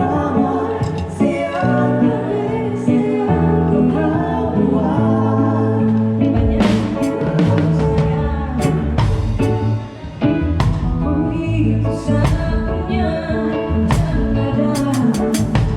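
Live band playing a song with a singer, over held bass notes; the drum kit comes in with snare and cymbal hits about six and a half seconds in.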